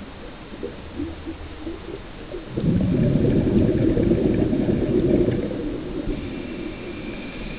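A scuba diver's exhaled breath bubbling out of the regulator, heard underwater: a low rumbling gurgle that starts about two and a half seconds in, lasts about three seconds and fades away.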